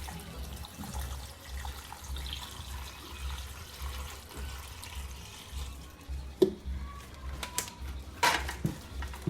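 Water poured into a saucepan of banana leaves and matooke to steam it, a steady splashing pour. It is followed by a few sharp knocks near the end.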